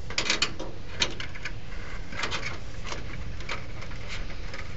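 Thin aluminum fascia being slid into place behind the roof's metal trim: a scatter of light clicks, crinkles and scrapes as the sheet metal flexes and rubs.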